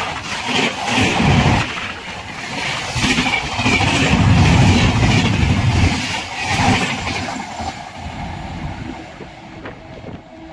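Indian Railways express passenger coaches passing close at high speed: wheels clattering and rumbling on the track in repeated surges, then fading as the last coaches go by and the train draws away.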